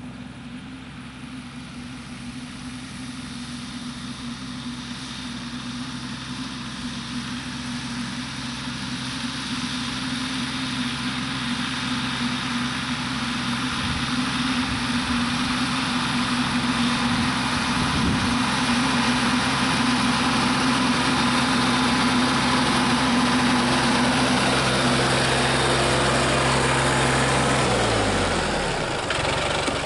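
Compact tractor engine running steadily as it tills a garden row, growing louder as it comes closer, its pitch dropping near the end as it passes by.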